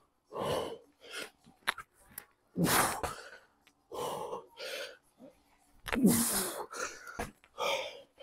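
A man breathing hard after intense exercise: a run of loud, heavy breaths and gasping exhalations about once a second, the loudest a little after halfway through.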